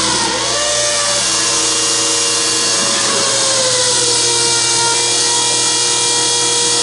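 Electric transfer pump running, a loud steady whine whose pitch drops over the first few seconds and then holds. It is pushing water from the bucket through the filter up to the sink faucet on a final leak test.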